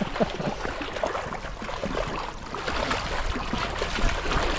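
Shallow river water running over rocks, with irregular splashing from a small hooked fish thrashing at the surface close by.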